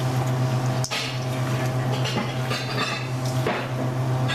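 Gloved hands squishing and turning sliced raw beef in marinade in a stainless steel mixing bowl, with wet slaps and occasional knocks against the metal bowl. A steady low hum runs underneath.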